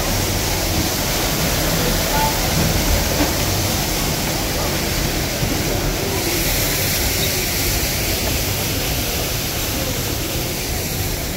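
Steady rush of water falling and running through an artificial rockwork waterfall and stream, a little brighter about halfway through, with a faint murmur of people's voices.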